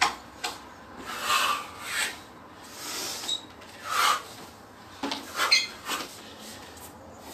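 A martial artist working through a fast Việt Võ Đạo strike sequence: a string of short whooshing bursts of noise, about eight in a few seconds at an uneven pace, as the strikes and steps are thrown.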